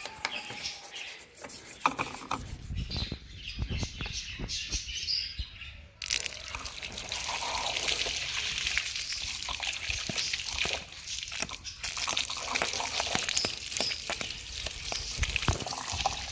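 Stiff toothbrush scrubbing the metal of a car's fuel-filler recess in short rubbing strokes. About six seconds in it gives way suddenly to a steady stream of water pouring and splashing over the car body, rinsing the scrubbed area.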